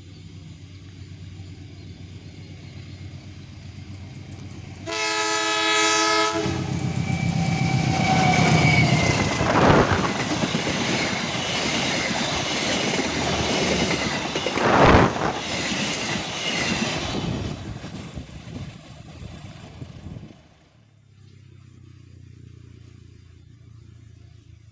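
A train approaching with a low rumble, then a single horn blast of about a second and a half sounded by the driver as a greeting, several tones at once. The train then passes close by, loud, with wheels clacking over the rail joints, until the sound drops off abruptly, leaving a faint low rumble.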